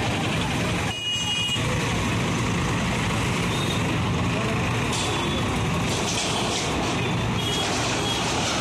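Diesel engine of a JCB backhoe loader running steadily close by as the machine moves, with a short high-pitched tone about a second in.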